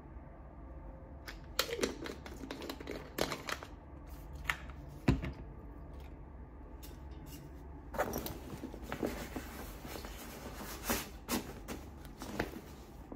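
Handling noises: scattered clicks and rustles as a plastic supplement bottle is handled and a fabric backpack is opened and packed, with one sharper knock about five seconds in.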